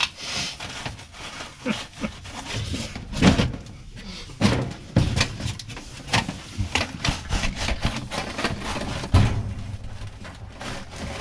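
Flexible dryer vent duct being worked by hand onto a vent collar: rapid crinkling and clicking as the collapsible tube is pushed and pulled, with several loud knocks and thumps against the wall and fitting.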